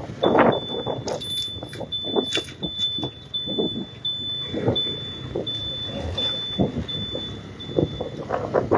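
TVS motorcycle riding along a rough road, with wind buffeting the microphone, and a high electronic beep repeating about one and a half times a second that stops shortly before the end.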